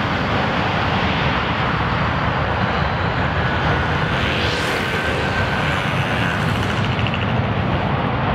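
The twin IAE V2500 jet engines of an Airbus A321-231 make a loud, steady noise as the airliner slows on its landing roll just after touchdown.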